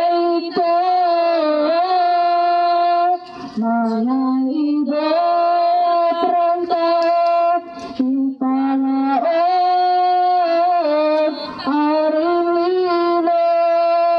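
A woman singing alone in a slow chant of long held notes that bend slightly in pitch, with short breaks for breath a few times.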